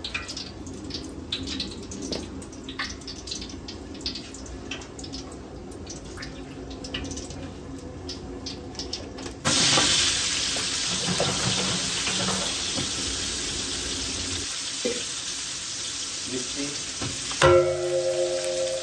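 Oil and ghee heating in a large aluminium pot, with light scattered crackles at first. About halfway in a loud, steady sizzle sets in suddenly and slowly eases. Near the end a knock with a short metallic ring as sliced onions and green chillies go into the hot oil.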